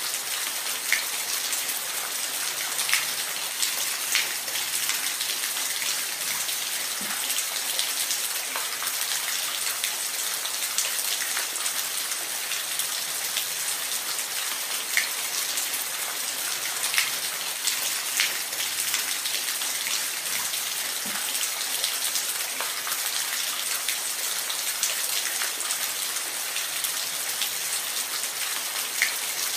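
Steady rain with individual drops tapping on a surface now and then.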